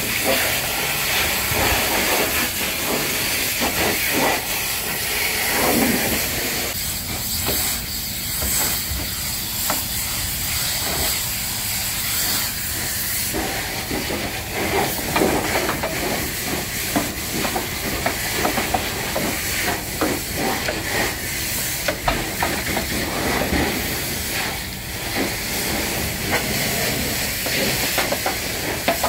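High-pressure washer jet spraying water onto a truck trailer: a loud, continuous hiss with spatter that surges and shifts as the jet moves across different surfaces.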